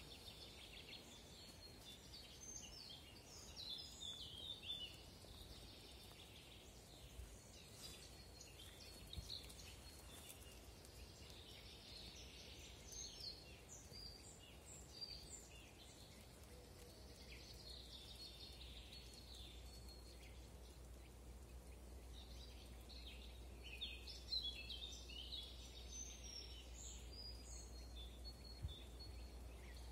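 Faint songbirds singing in a forest: spells of quick, high chirps and trills, loudest a few seconds in, around the middle and again near the end, over a faint low rumble.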